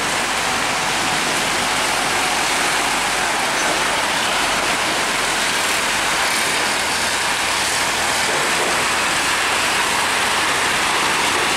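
Heavy tanker trucks rolling slowly past on a wet road in the rain: a steady, even hiss of rain and tyres on wet tarmac, with the trucks' engines underneath.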